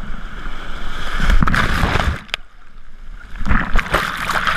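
Ocean surf breaking and washing over a camera at the waterline, the water churning and sloshing against the microphone. Two loud rushes come about a second in and again near the end, with a quieter spell between.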